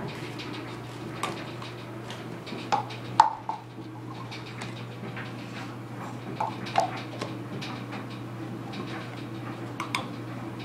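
Scattered light clicks and taps of a small plastic cup and its snap-on lid being handled, the sharpest about three seconds in, over a steady low hum.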